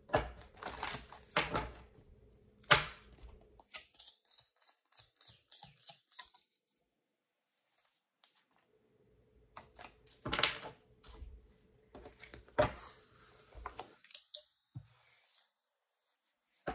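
Tarot cards being shuffled and handled, with quick clicks and a few sharper slaps. The card sounds stop for a couple of seconds near the middle, then start again.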